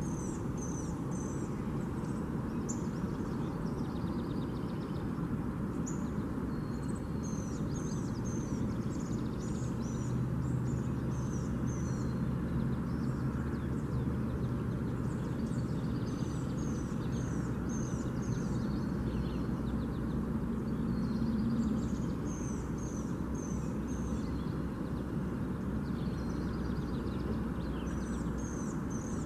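A small songbird singing short phrases of quick, high, down-slurred notes, repeated every few seconds, over a steady low background rumble.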